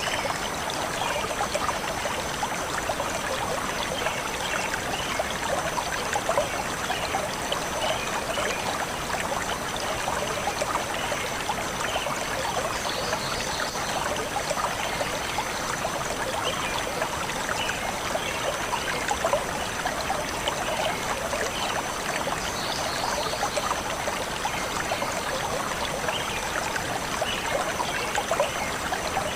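Stream of water flowing steadily.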